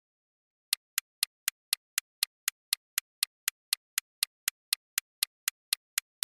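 Quiz countdown-timer sound effect: sharp clock-like ticks, about four a second, starting just under a second in.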